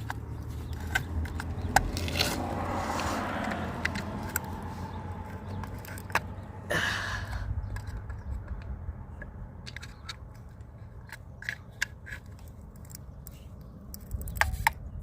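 Flathead screwdriver prying at the plastic caps over a car's lug nuts: scraping, with two longer scrapes and many small sharp plastic clicks.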